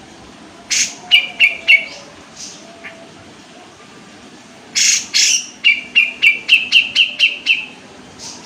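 Caged kapas tembak songbird singing in two loud bursts. Each opens with a harsh rasping note and runs into quick, sharp repeated notes. The second burst is longer, with about eight notes.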